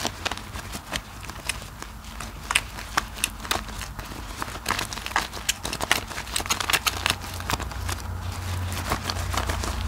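A wet bar of soap being lathered between rubber-gloved hands, making irregular wet clicks and squelches of soap and foam.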